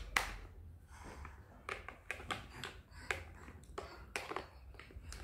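Small plastic toy parts being handled and snapped together while wheels are fitted onto a pretend-play ice cream cart: an irregular run of light clicks and taps, about a dozen or more.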